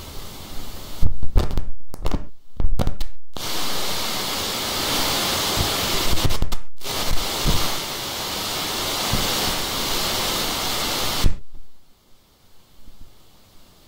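Loud steady hiss of noise, broken by several sharp dropouts and low thumps in the first few seconds, then cutting off suddenly about eleven seconds in.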